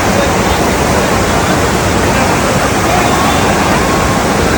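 Steady, loud rush of water, with faint voices calling out under it.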